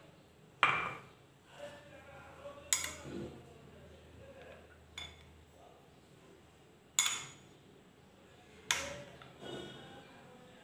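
Metal spoon clinking against a steel bowl while stirring milk: several sharp, separate clinks a second or two apart.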